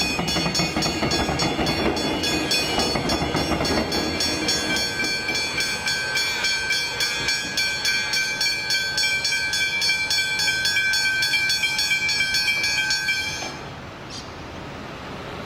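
Level crossing warning bells ringing in a steady rapid rhythm, while an electric suburban train rumbles over the crossing for the first few seconds. The bells cut off suddenly near the end, leaving quieter road traffic.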